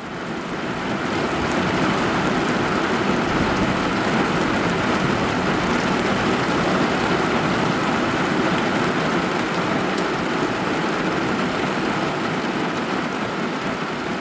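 Steady rushing noise of heavy thunderstorm rain, with vehicle noise mixed in, fading in right at the start.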